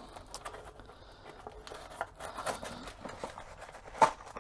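A small mail package being opened by hand: faint crinkling and rustling of the packaging with small clicks, and a sharper click about four seconds in.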